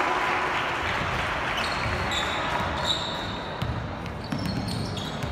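Basketball game in a gym: a ball being dribbled and sneakers squeaking briefly on the court over steady background noise in a large hall.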